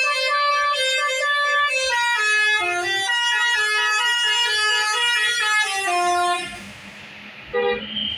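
A bus's telolet basuri horn, a multi-tone musical air horn, playing a tune of held notes that step up and down in pitch. It stops about six seconds in, and one short toot follows near the end.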